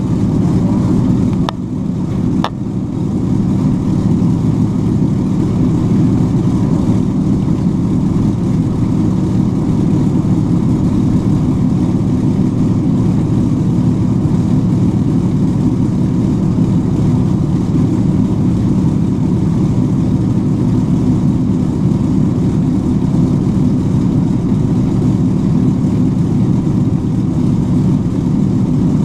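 Avro Lancaster's Merlin V12 piston engines running with a steady, deep drone, heard from inside the fuselage. Two brief clicks and a short dip in level come about two seconds in.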